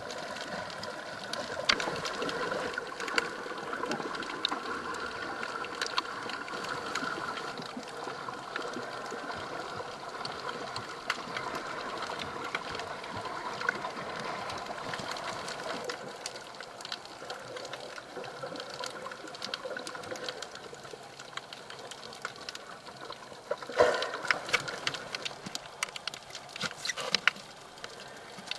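Water heard through an underwater camera: a muffled hum with many scattered sharp clicks and crackles, and a louder rush of water about 24 seconds in.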